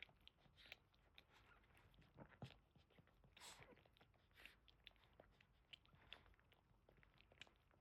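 Faint, wet mouth sounds of a Boston terrier mother and her newborn puppies: scattered small licking and smacking clicks, with a slightly longer wet sound about three and a half seconds in.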